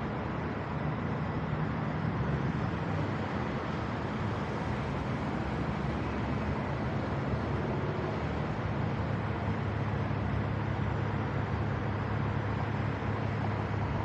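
Vehicle engine hum mixed with road and traffic noise. The engine note settles lower about halfway through.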